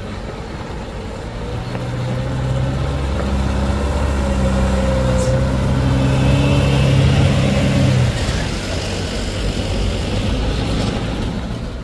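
Truck engine running, getting louder over the first few seconds and holding a steady low pitch, then dropping away about eight seconds in.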